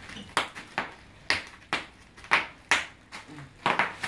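Bubble wrap bubbles popping one after another under a child's hands and knees: about eight sharp, separate pops, roughly two a second at an uneven pace.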